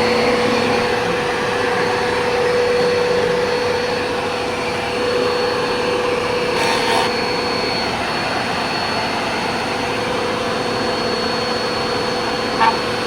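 Bissell PowerForce Helix Turbo Rewind vacuum cleaner running steadily at full speed: a continuous rushing hum with a steady whine on top.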